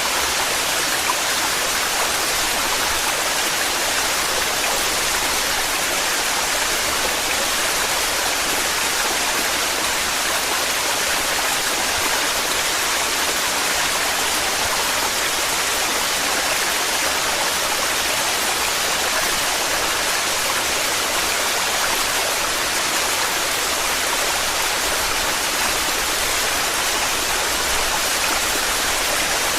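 Torrential waterfall: water pouring and splashing in a steady, even rush with no breaks.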